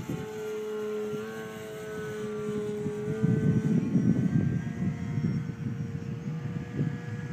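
Electric RC model airplane's motor and propeller whining steadily overhead, its pitch stepping up slightly about a second in and fading after about four seconds. Rumbling wind noise on the microphone, loudest in the middle.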